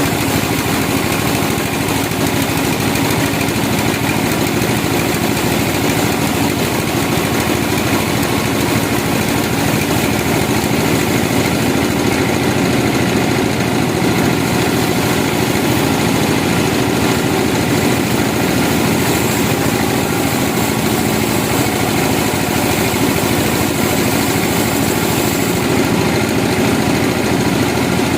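Sawmill machinery running steadily, a continuous engine-like drone that holds level without a break.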